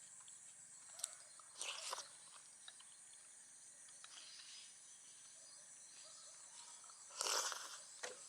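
Steady high-pitched insect chorus, with a few short noisy sounds about a second in, around two seconds in, and again near the end.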